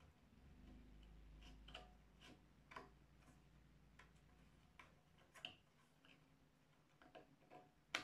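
Faint, irregular clicks and taps of small plastic parts being handled, about one a second, with a low hum fading out in the first couple of seconds. The parts are most likely the circular saw's battery-powered laser-guide attachment being closed up.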